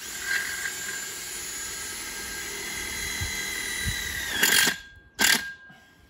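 Cordless drill driving a screw to fix a fence rail bracket to a post. There is a steady whine for about four seconds that drops in pitch as the screw seats, then two short, loud bursts.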